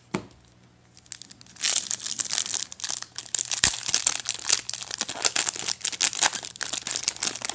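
A single short knock, then, from about one and a half seconds in, the foil wrapper of a Magic: The Gathering Battlebond booster pack crinkling and tearing as it is ripped open by hand, a dense run of crackles.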